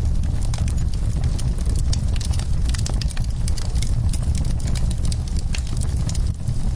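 Wood fire crackling: many sharp irregular pops and snaps over a steady low rumble.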